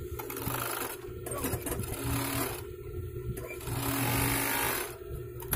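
Overlock sewing machine stitching and trimming the edge of sweatshirt fabric in three short runs, with brief stops between them, the last run the longest.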